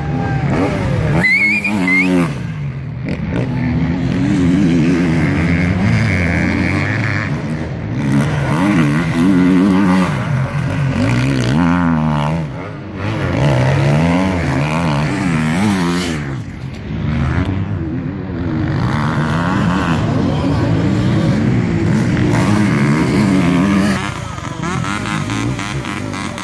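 Enduro dirt-bike engines revving hard, the pitch rising and falling again and again with the throttle as bikes pass one after another.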